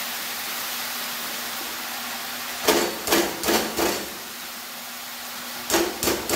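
Jute leaves sizzling in hot oil in a steel pan, a steady hiss. About three seconds in come four quick sharp knocks of utensils against the pan, and two more near the end.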